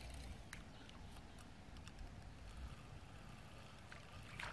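Quiet pond-side ambience: a faint low rumble, a few soft ticks, and one brief soft swish near the end.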